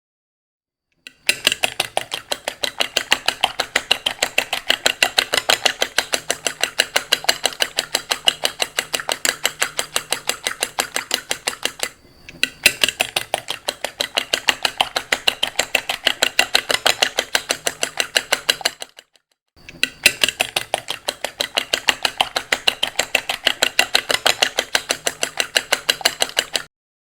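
Rapid, even clinking of a metal utensil striking a dish, about six strokes a second, in three long runs separated by two brief pauses.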